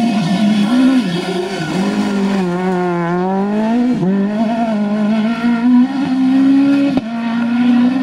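Citroen C2 S1600 rally car's high-revving four-cylinder engine braking into a hairpin, its revs falling in steps with short blips, then climbing steadily as it accelerates out through the gears. There is a sharp crack about seven seconds in.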